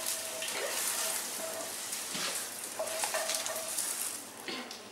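Scrambled egg sizzling in a frying pan while it is stirred and scraped with a wooden spatula, with a few stronger scraping strokes in the second half.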